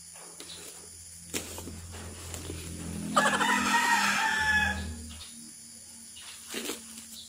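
A rooster crowing once, a single call of almost two seconds about three seconds in, over a low steady hum and a few faint knocks of cardboard being handled.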